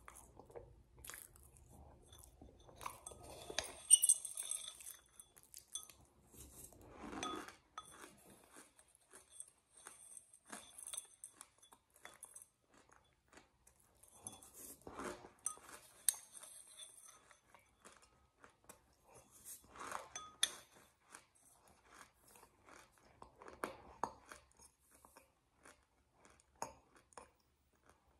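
Close-up chewing and crunching of a crunchy white food eaten by the spoonful, with mouth smacking; irregular crunches, loudest about four seconds in and again in clusters later on.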